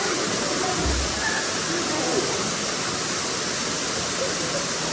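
Steady rush of water pouring over a small waterfall into its pool.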